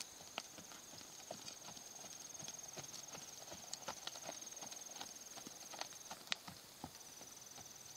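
A horse's hoofbeats on arena sand as it lopes under a rider, an uneven run of faint thuds and clicks. A steady high insect trill runs behind them.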